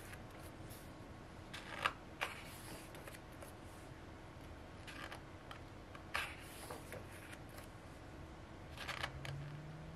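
Pages of a printed photobook being turned by hand: short paper rustles and flicks, a few seconds apart.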